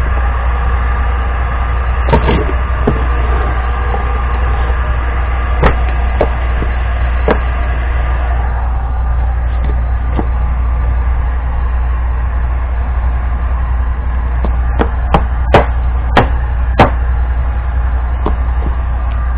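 Heat gun blowing steadily on its highest setting, with a low hum under the airflow. Sharp knocks and taps come now and then, with a quick run of four or five between about 15 and 17 seconds in, as the softened PVC pipe is handled.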